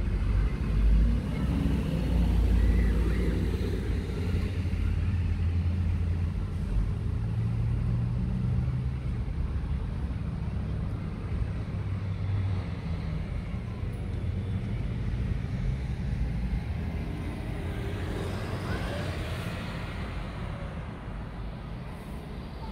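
Road traffic heard from inside a car's cabin: a heavy low engine rumble, loudest in the first few seconds and slowly fading. A higher engine note swells and dies away near the end.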